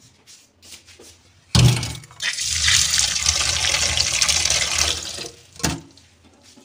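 Tap water running into a steel bowl of bathua leaves in a sink for about three seconds. It starts with a knock about one and a half seconds in and fades out before a sharp click near the end.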